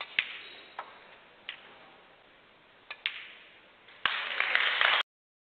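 Snooker balls clicking as the last pink and black are potted: a sharp click of cue on cue ball or ball on ball every second or so. Then audience applause breaks out about four seconds in and cuts off abruptly a second later.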